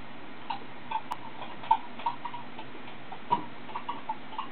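About a dozen irregularly spaced sharp clicks and ticks over a steady hiss, the loudest about a third of the way in and again about three-quarters through.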